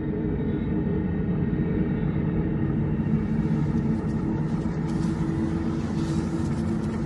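Horror sound-effect ambience: a steady low rumbling drone with several held low tones, a faint hiss joining it about halfway through.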